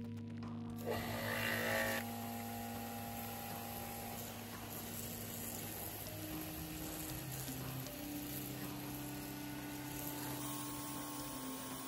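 Electric pressure washer switched on, then the steady hiss of its water jet spraying onto rusty metal parts, loudest for about a second just after it starts.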